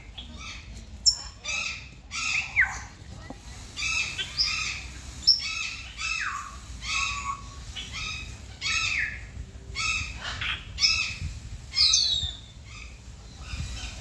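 Peafowl calling in a rapid series of short calls, about two a second, stopping near the end, with a few higher calls sliding downward in between.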